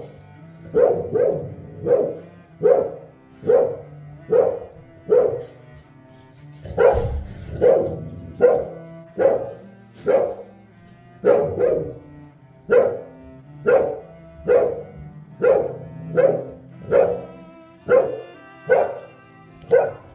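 Beagle barking over and over in a steady run, about one bark a second, with a short break about six seconds in. Background music plays underneath.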